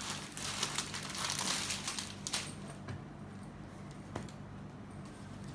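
Silk saree and its plastic wrapping rustling and crinkling as they are handled and spread out. The rustle is loudest in the first two and a half seconds, then dies down to a couple of faint ticks.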